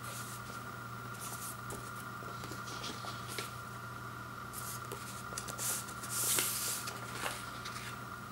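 White paper inner sleeve rustling in the hands as a black vinyl LP is slid out of it, in scattered handling strokes with the longest and loudest rustle about six seconds in. A steady hum runs underneath.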